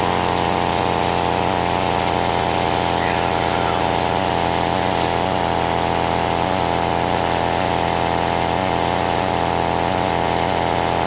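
Gyroplane's piston engine and propeller running steadily under power during takeoff and climb-out, heard from the open cockpit.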